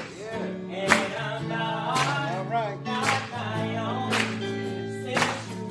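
Gospel church choir and band playing, with held low notes under wavering melody lines and a sharp beat about once a second.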